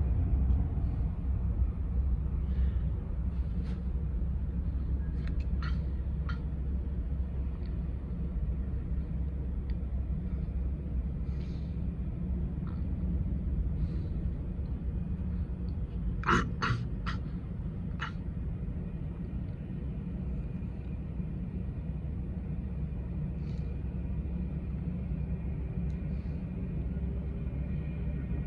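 Steady low rumble of jet airliner engines, with a few faint clicks scattered through it and a short burst of sharper clicks about sixteen seconds in.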